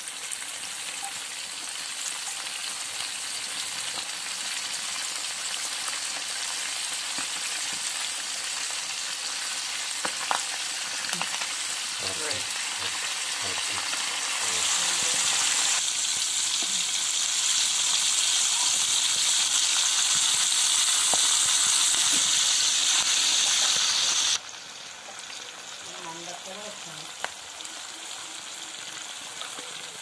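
Chicken pieces deep-frying in hot oil in an aluminium pan, sizzling steadily, with a few clinks of a steel spoon stirring. The sizzle grows louder about halfway through, then drops back suddenly a few seconds before the end.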